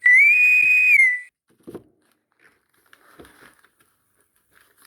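A short, loud whistle-like tone held for about a second, rising slightly, holding, then dropping back before it stops; a few faint clicks of small parts being handled follow.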